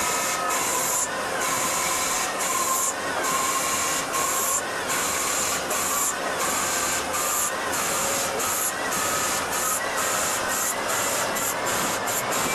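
CNC lathe cutting a steel workpiece under a flood of coolant: a steady hiss of spraying coolant and cutting, with faint whining tones underneath.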